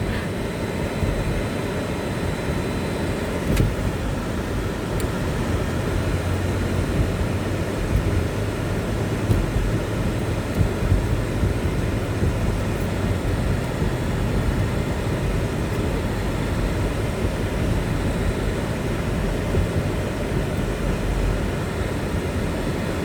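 Steady road noise inside a moving car's cabin: low rumble of tyres and engine as the car drives on.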